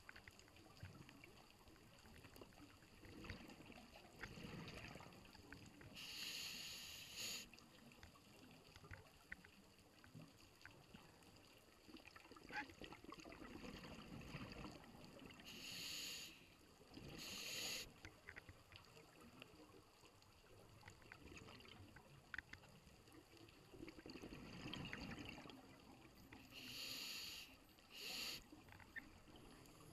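Scuba diver breathing through a regulator underwater, faint and muffled: a short hiss on each inhale and a low rumble of exhaled bubbles, repeating about every ten seconds.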